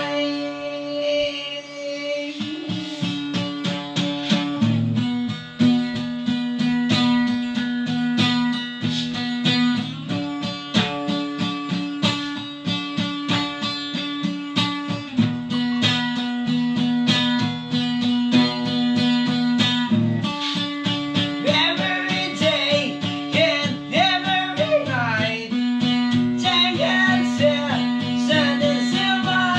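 Acoustic guitar playing a steady, rhythmic picked riff in a band's acoustic arrangement of a rock song. A wavering higher melody line joins in the last third.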